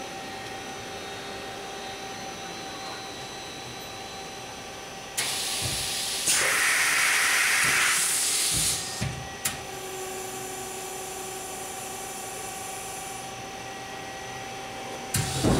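KIWA KNH-426X horizontal machining center running a pallet change. A steady machine hum gives way about five seconds in to a loud hiss lasting about three and a half seconds, with low thuds. Single clicks follow, then more clicks and thuds near the end.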